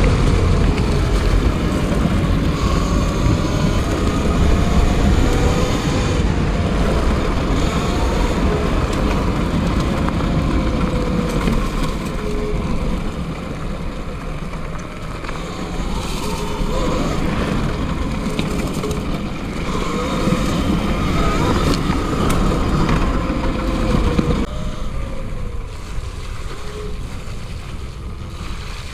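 Eride Pro SS electric trail bike being ridden: its motor's whine rises and falls in pitch with speed over a steady low rumble of tyres on the trail. The rumble eases somewhat near the end.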